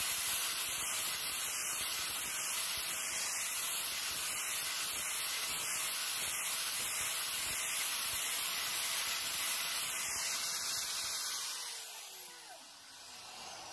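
Angle grinder with an abrasive disc sanding a machete's wooden handle: a steady hiss over the motor's whine. About twelve seconds in it is switched off, and the whine falls away as the disc spins down.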